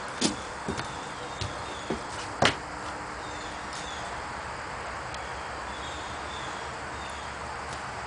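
Steady outdoor background hiss with faint high chirps of small birds, broken by about six sharp clicks or taps in the first two and a half seconds. The loudest clicks come about a quarter of a second and two and a half seconds in.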